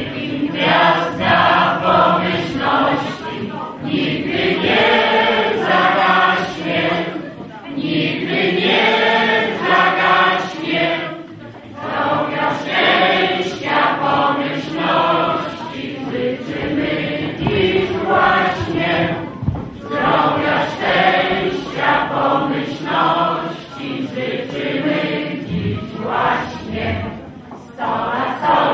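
A roomful of people singing a toast song together in chorus, in phrases of about four seconds with short breaks between them.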